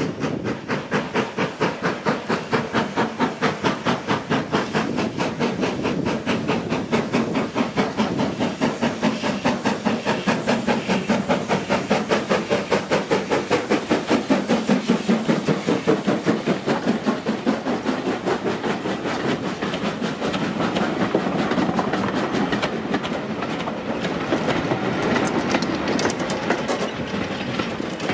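Ivatt class 2MT steam locomotive 46447 working under steam, its exhaust beats coming in a fast, even rhythm of several chuffs a second, mixed with rail noise from the train. The beats grow less distinct over the last third.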